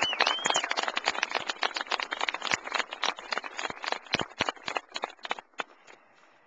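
Crowd applauding, with a short whistle right at the start. The clapping thins out and dies away about five seconds in.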